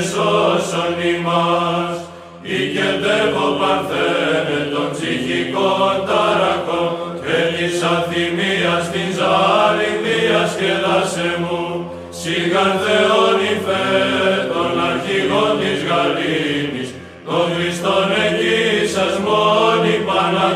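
Byzantine choir chanting a Greek hymn: a sung melody over a steady held drone note, in phrases broken by short pauses about two, twelve and seventeen seconds in.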